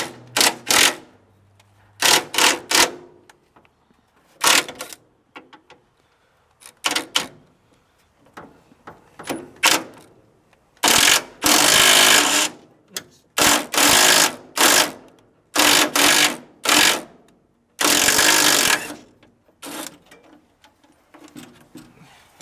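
Hammering on a sheet-steel wheel-arch panel, shaping and tidying the repair. There are separate sharp blows at first, then from about eleven seconds in, several bursts of rapid strikes, each lasting about a second.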